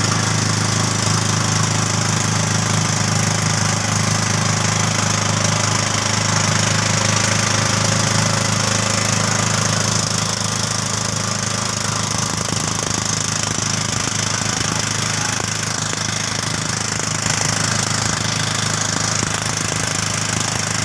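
A small boat's motor running steadily under way, a continuous low chugging engine note.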